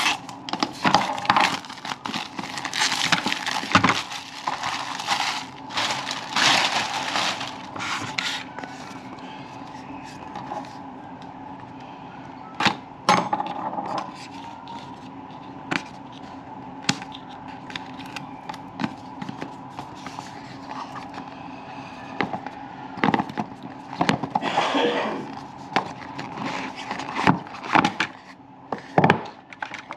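Hands handling a thermostat's plastic trim plate and mounting parts: scattered clicks, light knocks, crackling and scraping, busiest in the first several seconds and again near the end, over a steady low hum.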